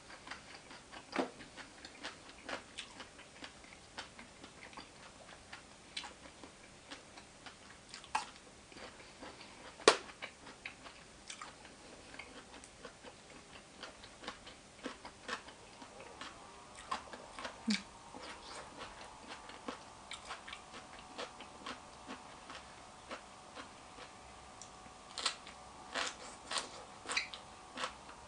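A person eating close to the microphone: chewing with many soft wet mouth clicks and smacks, and now and then a sharper click. A faint steady hum joins about two-thirds of the way in.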